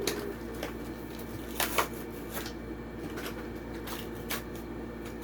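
Plastic blister packaging and card backing of a die-cast toy car crackling and clicking as the package is torn open, in scattered snaps, two sharper ones close together a little before the two-second mark, over a steady low hum.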